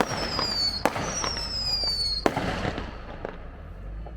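Fireworks: several whistling fireworks sound together, their high whistles slowly falling in pitch, with sharp bangs just under a second in and just after two seconds. The whistles stop at the second, loudest bang, and the display fades to a few fainter pops and crackle.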